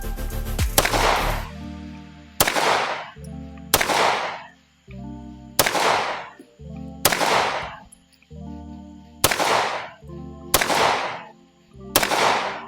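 CZ Shadow 2 9mm pistol fired in slow, deliberate single shots, about nine in all, one every one to two seconds, each a sharp crack with a trailing echo. Background music plays throughout.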